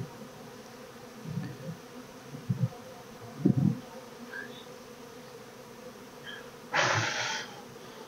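Honeybees buzzing around an open hive, a steady hum, with a few dull low thumps in the first few seconds and a short scraping rustle about seven seconds in.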